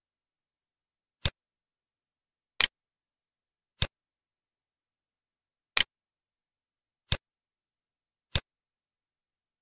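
Computer mouse clicks: six short, sharp clicks a second or so apart, two of them quick double clicks (about two and a half and six seconds in), with silence between.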